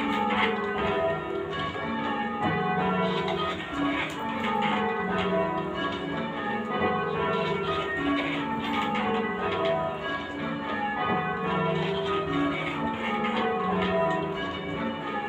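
Church tower bells rung full-circle in change ringing: an even, unbroken run of bell strikes in changing order, each note ringing on under the next.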